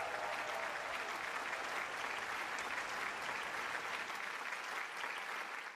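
Audience applauding: steady clapping that fades out near the end.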